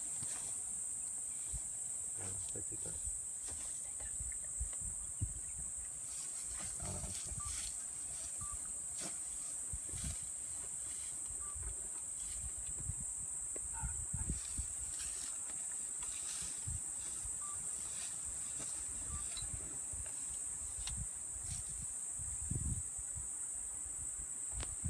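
Steady high-pitched drone of insects, with scattered low thumps and rustles.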